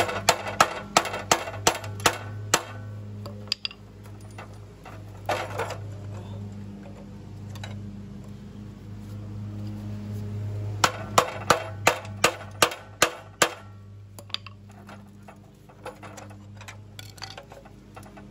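Hammer blows on steel files stacked as wedges between a pressure-washer pump and its engine, driving the rust-seized pump off the crankshaft. Two runs of sharp metal strikes, about three a second, at the start and again about eleven seconds in, with lighter knocks between, over a steady low hum.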